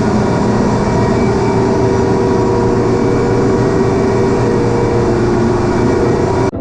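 Rebuilt Vilter VMC 440 four-cylinder reciprocating ammonia compressor running steadily and loudly, a constant mechanical drone with a steady hum, cutting off abruptly at the very end.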